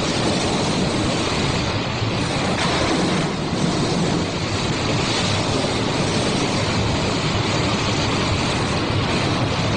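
River rapids: white water rushing steadily over rocks, a continuous even noise that neither builds nor fades.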